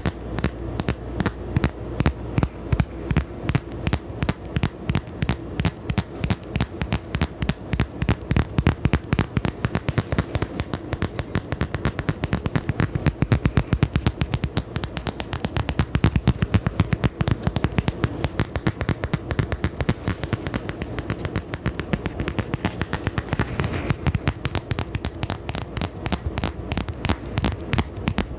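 Close-miked ASMR tapping: quick, sharp taps and clicks, several a second, over a steady low hum.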